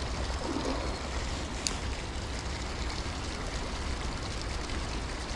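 Small river running steadily, an even rushing trickle of flowing water, with one sharp click a little under two seconds in.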